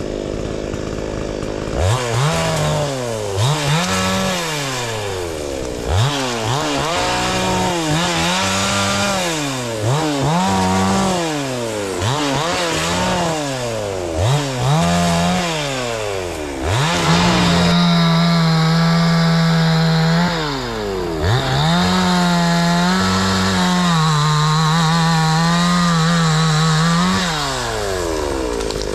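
Two-stroke chainsaw idling briefly, then revved up and down repeatedly, about every second and a half. In the second half it is held at high revs for a few seconds, twice, before dropping back.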